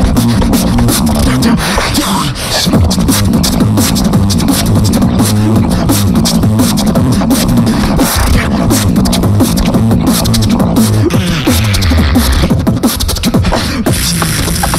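Two beatboxers performing a tag-team routine together into handheld microphones. Deep bass tones that step in pitch run under a fast, steady rhythm of sharp clicking snares and hi-hats.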